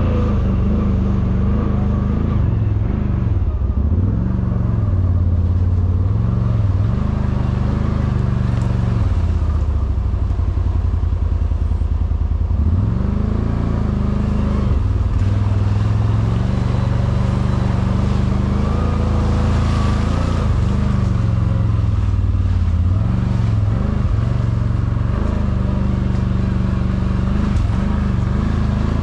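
CFMoto G3 1000's V-twin engine running under way, its engine speed dipping and climbing again several times as the throttle is eased off and reopened, with a longer low stretch about ten seconds in.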